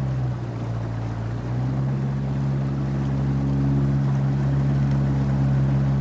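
Outboard motor running steadily as a fishing boat travels up a river, with the rush of water and air around the hull. The engine note drops briefly near the start, then comes back up and holds steady.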